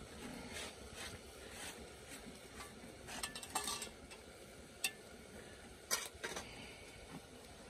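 Light clinks and scrapes of a metal utensil against a metal bowl and a lidded cooking pot on a wood fire, a handful of sharp taps spread over a few seconds above a faint steady hiss.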